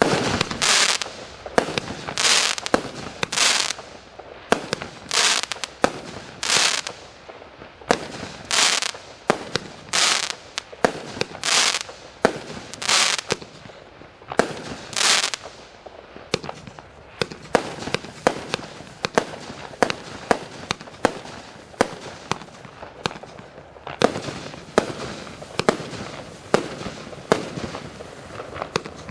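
A 238-shot compound fireworks cake firing continuously, with sharp shot reports and longer hissing bursts about every second. About halfway through it turns to a rapid run of many short pops and bangs, several a second.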